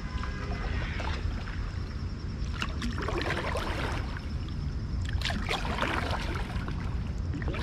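Kayak paddle strokes splashing and dripping in the water, a few strokes from about two and a half seconds in, over a steady low rumble of wind on the microphone.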